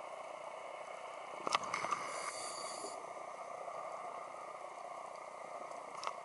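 Underwater sound picked up through a diver's camera: a steady hiss, with one hissing scuba-regulator breath starting with a click about a second and a half in and lasting about a second and a half.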